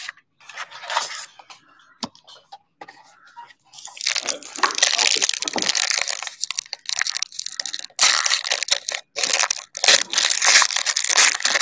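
Trading-card box packaging being torn open and crinkled. A few scattered crinkles come first, then a dense run of ripping and crackling starts about four seconds in.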